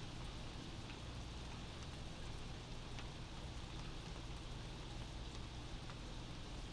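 Steady rain heard from indoors, with a few faint drip ticks and a steady low rumble underneath.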